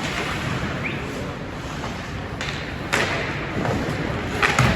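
Ice hockey play in a rink: a few sharp knocks of sticks, puck and boards, the loudest about three seconds in and a quick pair near the end, over a steady hollow rink noise.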